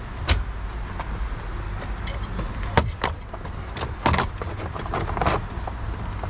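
Plastic steering column shroud being pulled apart by hand: a string of separate clicks and knocks as the trim pieces unclip and are handled, over a low steady hum.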